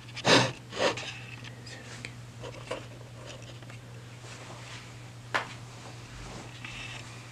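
Rustling and a few knocks from someone moving about the room: two noisy scuffs in the first second and a sharp click about five seconds in, over a steady low electrical hum.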